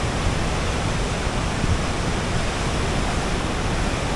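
A steady rushing noise with an uneven low rumble and no distinct events.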